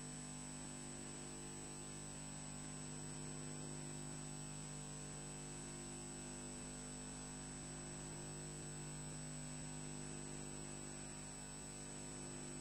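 Steady electrical hum with hiss and a high constant whine, unchanging throughout: interference in a nest camera's audio feed.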